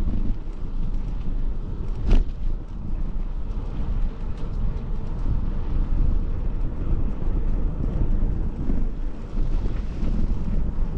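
Wind buffeting the microphone of a mountain biker's camera as the bike moves, a steady low rumble. One sharp knock comes about two seconds in.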